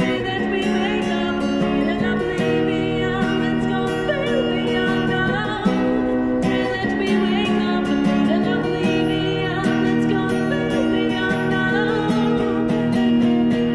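Woman singing to her own strummed acoustic guitar, amplified through a microphone and a small portable amplifier.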